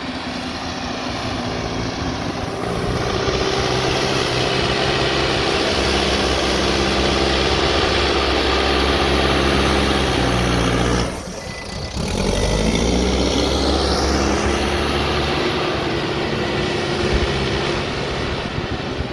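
Backhoe loader's diesel engine working under load. It revs up and holds a steady high note, then drops sharply for about a second just past the middle before climbing back up.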